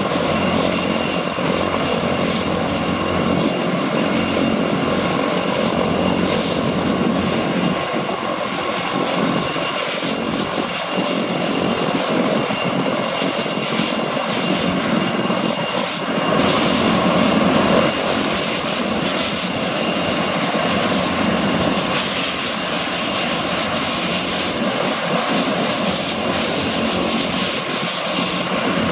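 Agusta A109E Power helicopter's twin turbine engines running on the ground with the main rotor turning: a steady high turbine whine over the rotor's noise. It swells briefly a little past halfway.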